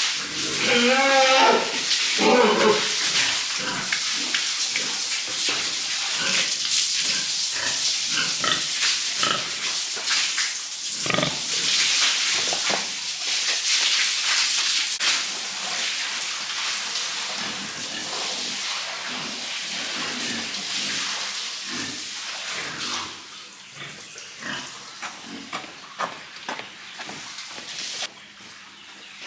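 Pigs squealing and grunting, with pitched squeals in the first few seconds, over a steady hissing noise that drops away about 23 seconds in.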